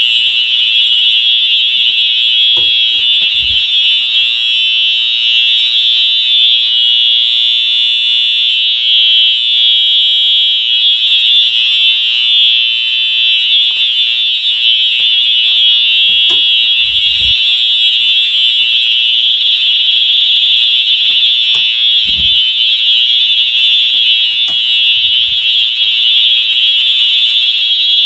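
A Wheelock EH-E01 electronic fire alarm horn sounding continuously with a loud, high, steady tone. A few dull bumps come through underneath it.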